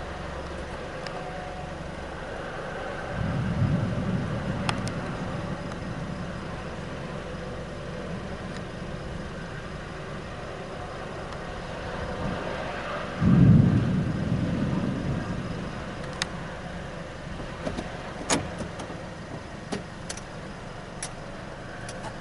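Steady road and engine noise inside a moving car, with two louder low surges, the bigger one about halfway through, and a few sharp clicks near the end.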